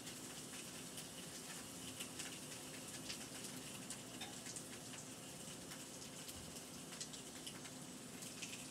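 Chicken breast frying in a hot pan: a faint, steady sizzle with many small crackles and pops, over a steady low hum.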